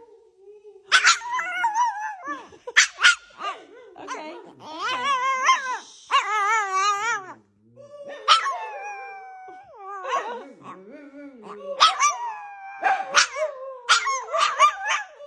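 A dog barking and howling: sharp barks near the start, long wavering howls around the middle, then a quick run of barks near the end.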